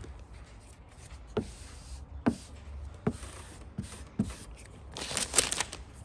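Hands pressing and rubbing matte vinyl film onto a truck hood to work out air bubbles: five soft taps and knocks, then a brief burst of rustling and scraping about five seconds in.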